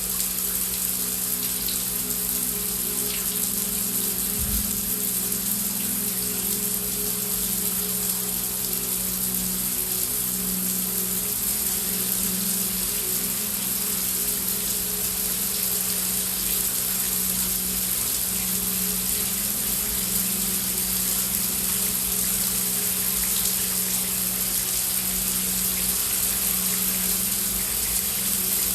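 Heavy rain falling as a steady, dense hiss, with a low, steady droning pad of background music underneath.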